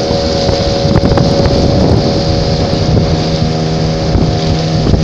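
Engine of a small open motorboat running steadily under way at an even pitch, with wind buffeting the microphone.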